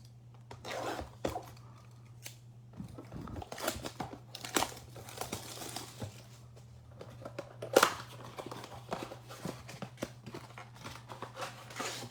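A blaster box of trading cards being unwrapped and opened by hand: plastic wrap crinkling and tearing, with cardboard rustling. The sounds come in irregular spurts, with the sharpest snap about eight seconds in.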